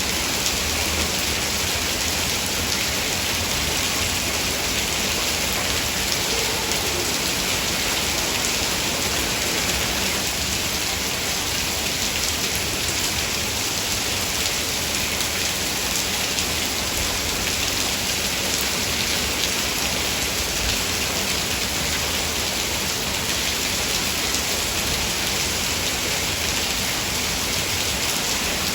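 Heavy rain falling steadily, a dense, even hiss with fine pattering of drops.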